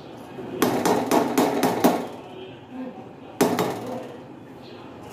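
Metal spoon knocking against a metal kadhai while stirring grated carrots in milk. A quick run of knocks comes about half a second in and lasts a second and a half, then one sharper knock comes about three and a half seconds in.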